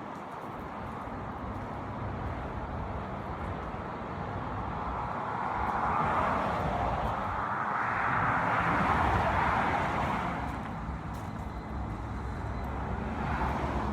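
Road traffic: a steady rumble of vehicles that swells as one passes about six to ten seconds in, and again briefly near the end.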